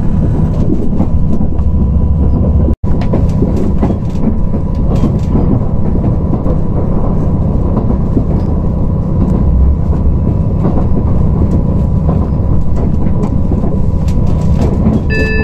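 KiHa 183 series diesel train running at speed, heard from inside the carriage: a steady rumble of the underfloor diesel engine and wheels on the rails. The sound cuts out for an instant about three seconds in.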